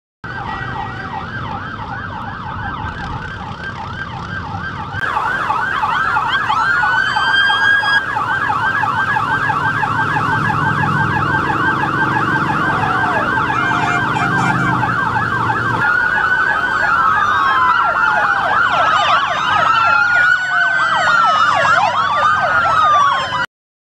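Several emergency vehicle sirens sounding together, a fast repeating yelp overlapping with slower rising and falling wails that join in the second half. Motorcycle engines rumble underneath partway through, and the sound cuts off suddenly near the end.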